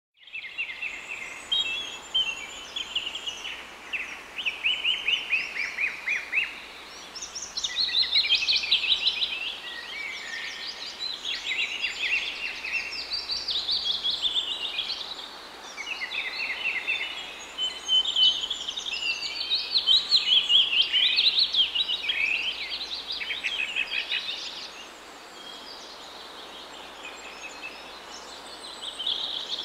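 Several songbirds singing at once: overlapping rapid trills and chirping phrases, going on and off all through, with a quieter few seconds near the end.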